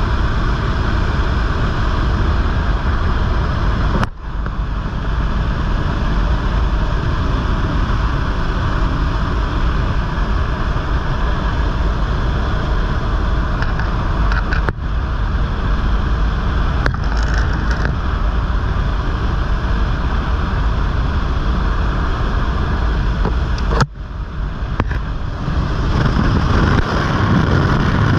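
Steady loud rush of wind and engine noise inside a skydiving jump plane flying with its door open. The noise dips for an instant about 4, 15 and 24 seconds in.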